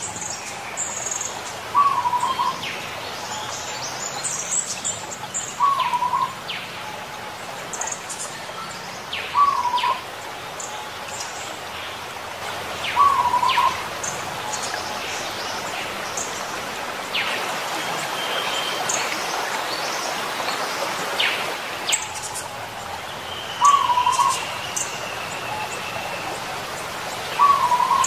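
Zebra dove (perkutut) calling in short coos about every four seconds, six in all, with a long pause in the middle. Other small birds chirp and whistle higher up over a steady outdoor hiss.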